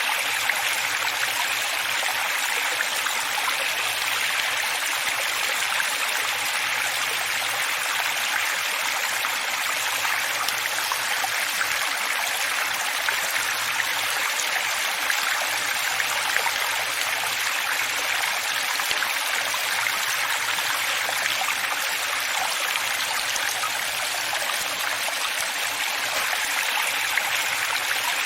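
Running water flowing steadily: an even, unbroken rush with little low rumble and no single splashes or gurgles standing out.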